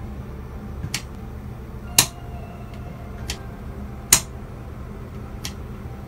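Light, sharp ticks about once a second in a slightly uneven tick-tock rhythm, over a low steady hum.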